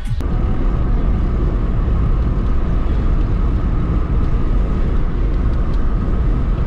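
Car driving on a highway: steady road noise with a heavy low rumble and a faint steady hum above it.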